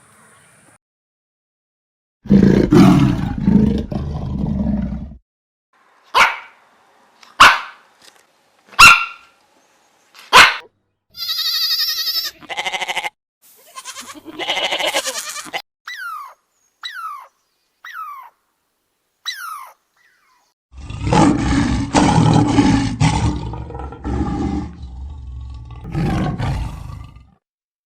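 A string of separate animal calls: a loud low call, then four short sharp calls, a pitched call and a few quick falling chirps, and a long loud low call near the end.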